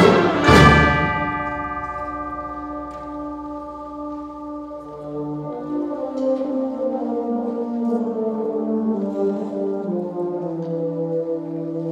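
Symphonic concert band playing: a loud accented chord with ringing chimes about half a second in, dying away over a few seconds, then soft sustained brass chords over low notes.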